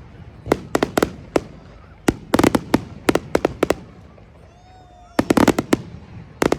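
Fireworks going off in three volleys of sharp cracking bangs, each a quick run of reports, with short lulls between them.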